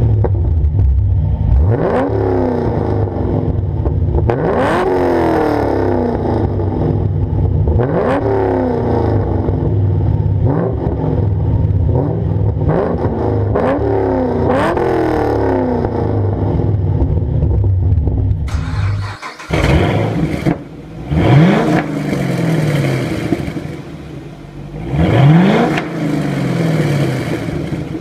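Chevrolet Camaro LS3 V8 with a 3-inch exhaust and SLP LM2 mufflers, revved from idle while standing still in repeated short blips, each rising and falling back. After a short break about two-thirds through, a Camaro SS V8 with a Corsa exhaust is blipped several times in a garage.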